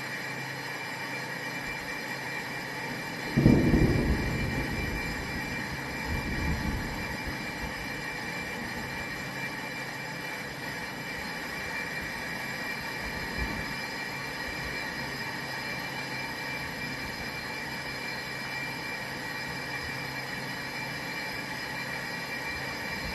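Brake drum/disc lathe running with a steady mechanical drone and a constant high whine. A heavy low thud about three seconds in rumbles away over a second, with lighter knocks a few seconds later and again near the middle.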